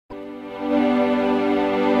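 Intro music: a held chord of steady tones that starts abruptly and swells louder about half a second in.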